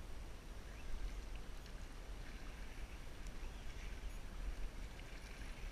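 Sea water lapping gently against shore rocks under a steady low rumble, with a few faint clicks.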